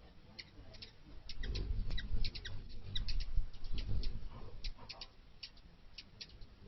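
Hummingbirds at a feeder: many short, sharp chip notes scattered irregularly, with a louder low wing hum that comes in about a second and a half in and fades away before the end.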